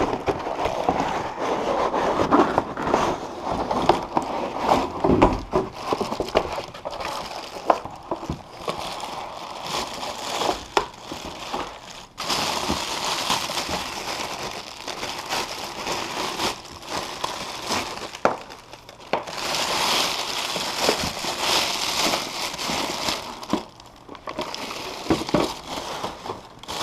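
Packaging being handled while a humidifier is unboxed: steady crinkling and rustling mixed with many small clicks and knocks, louder in two long stretches in the second half.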